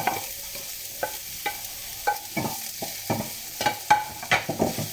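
Minced garlic and onion sizzling in hot oil in a pan while being sautéed, stirred with a utensil that knocks and scrapes against the pan at irregular intervals.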